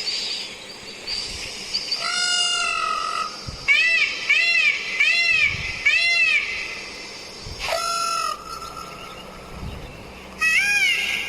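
Peacock calling: a long call about two seconds in, then four short calls in quick succession, another call near eight seconds, and a fast run of calls near the end. Faint high chirps in the first two seconds.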